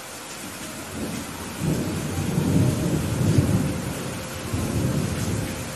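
Heavy rain falling steadily, with a long low rumble of thunder that builds about a second and a half in, swells twice and fades near the end.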